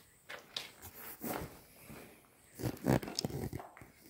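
Short rustles, scrapes and light knocks of small objects being handled, coming irregularly about half a dozen times, strongest a little before the three-second mark.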